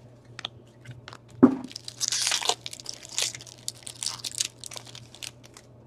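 A trading-card pack wrapper is torn open and crumpled by hand, a run of crinkling and crackling with scattered sharp clicks. There is one louder thump about a second and a half in.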